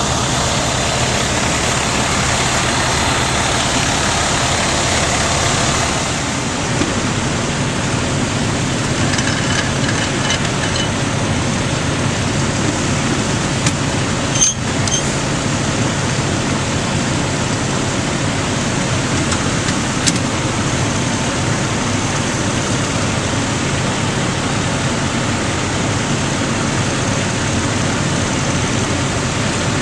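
Fire engine's engine running steadily, with a single short knock about halfway through.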